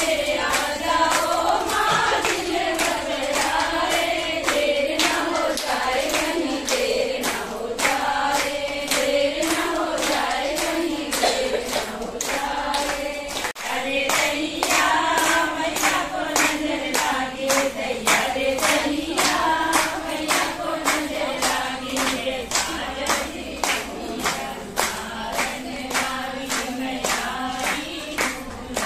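A group of women singing a devotional puja song together, clapping along in a steady beat about twice a second.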